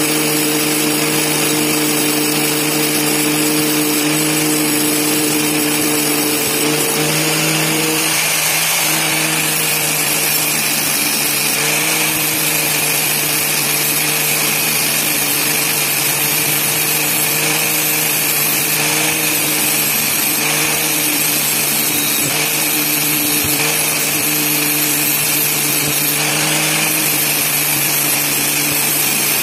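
Power tool fitted with an old tile cutting disc, running steadily with a constant hum, sharpening the teeth of a bandsaw blade; its pitch dips briefly about seven seconds in.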